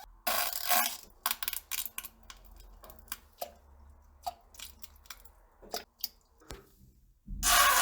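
Fart and poop sound effects: an irregular run of short crackling, popping bursts, with one louder, longer burst near the end.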